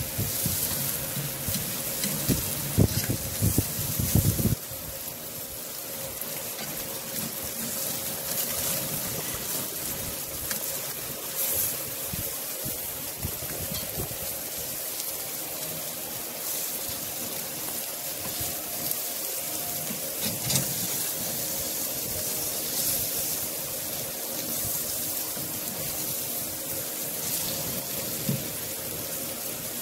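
Salmon steaks sizzling on a hot grill grate over open flame, a steady hiss. For the first few seconds there are knocks and scrapes of a spatula turning the fish, which stop suddenly.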